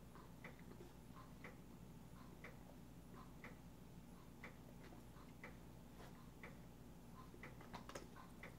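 A clock ticking faintly and evenly, about once a second, with a few faint clicks near the end.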